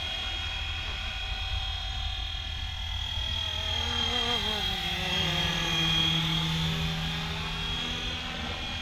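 Flywing FW450L V3 RC helicopter in flight: the high whine of its electric motor and spinning rotors, with many overtones, sagging in pitch and rising again near the middle and loudest about six seconds in.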